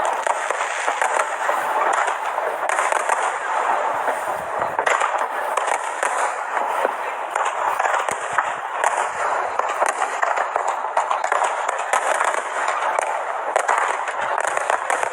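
Fireworks display going off continuously, a dense stream of sharp cracks and pops from many shells bursting over one another.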